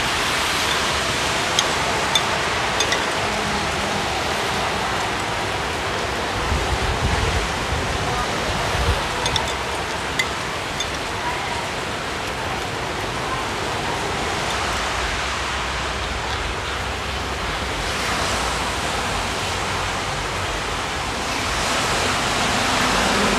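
A steady rushing hiss like a fan or wind on the microphone, with a few faint light clicks of a fork and spoon against a plate. A low rumble comes in around the middle.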